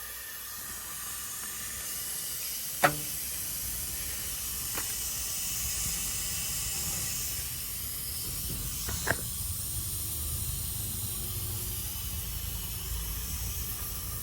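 Nitrogen hissing steadily into an air conditioner's refrigerant lines as the system is pressurised for a leak check, with a sharp click about three seconds in and a smaller one near nine seconds.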